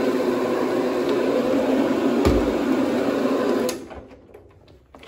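Counter-rotating brush (CRB) carpet machine running, its brushes agitating carpet during encapsulation cleaning. There is a low thud a little past two seconds, and the machine noise stops about three-quarters of the way through, leaving faint clicks.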